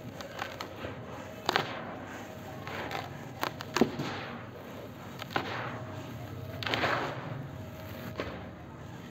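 Hands scooping dry, grainy powder and letting it pour through the fingers into a heap: a soft hissing rush each time it streams down, with several sharp little crunches and clicks as grains and small lumps are pressed and broken.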